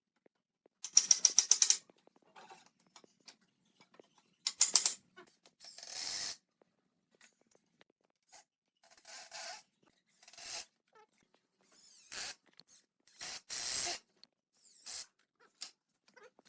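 Woodworking hand work: short separate bursts of rapid clicking and scraping with pauses between. The loudest is a fast run of clicks about a second in.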